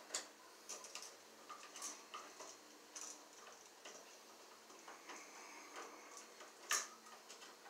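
Scattered light clicks and taps of hands and a small tool working wires into a wall electrical box, with a sharper click shortly before the end.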